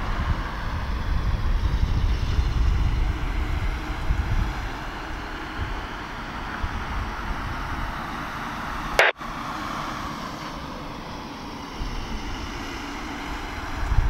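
Boeing 777's twin turbofan engines at takeoff power: a steady jet roar over a low rumble as the airliner rolls, lifts off and climbs away, easing slightly after the first few seconds. A sharp click with a split-second dropout about nine seconds in.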